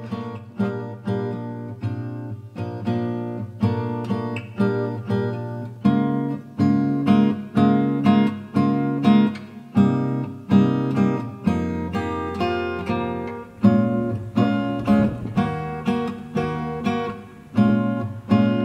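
Background music: an acoustic guitar picking and strumming chords in a steady rhythm.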